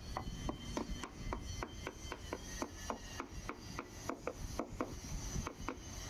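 Quick, even strokes of hand scraping or filing, about four a second.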